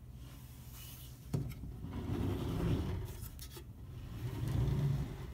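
The Antminer A3's metal case being turned by hand and slid across a tabletop: a low rubbing, scraping rumble that swells twice, with a sharp knock about a second in and a few light clicks around three seconds in.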